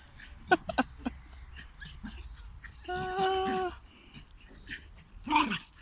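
Bichon puppy vocalizing in play: a few short sharp sounds in the first second, a held high whine about three seconds in, and a short falling yelp near the end.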